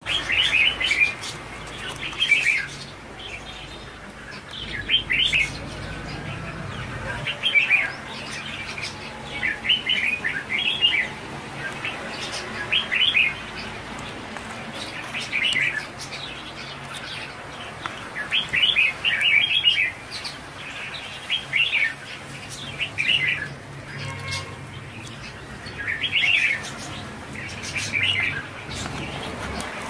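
Birds chirping: short bursts of quick, high chirps repeated every one to three seconds.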